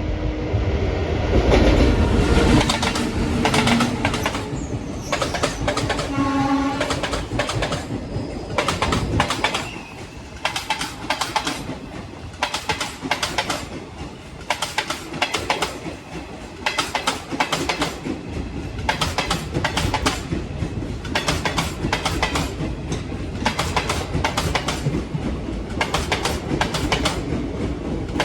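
Indian Railways train running through the station at speed: a heavy rumble as the locomotive passes, loudest about two seconds in. Then a long run of clickety-clack, clusters of sharp clacks repeating as the wheels of coach after coach cross the rail joints.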